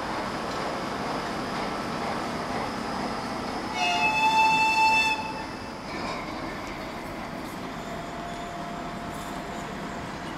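Diesel locomotive engine running, with one loud horn blast of about a second and a half, about four seconds in. After a break, the engine of a ZSSK class 754 diesel-electric locomotive runs steadily as it comes closer.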